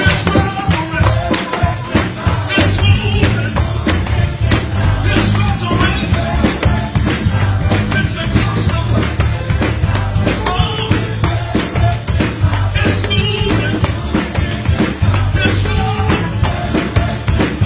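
Fast Pentecostal praise music: tambourines shaking and drums driving a quick, steady beat over a heavy bass, with voices singing.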